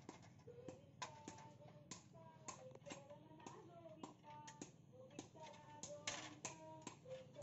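Faint music with a melody, crossed by sharp metal clicks and taps from steel pincers twisting binding wire tight around a stack of cut steel spade blanks.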